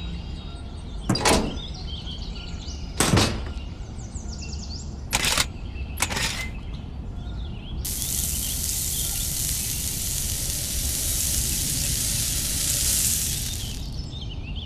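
Four short, sharp knocks a second or two apart over a low steady hum, then an even hiss that starts abruptly about halfway through and fades out near the end.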